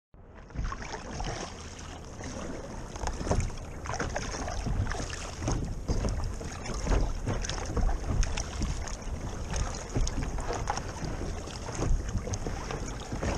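Sea kayak paddling: water splashing and sloshing around a sit-on-top kayak with each paddle stroke, over steady wind rumble on the microphone.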